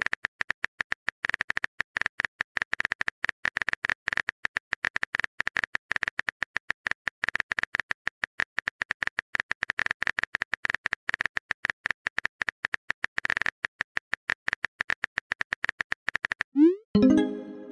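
Phone keyboard typing sound effect: rapid, irregular clicks, several a second, with a brief pause about 13 seconds in. Near the end a short rising pop sounds as a new chat message appears.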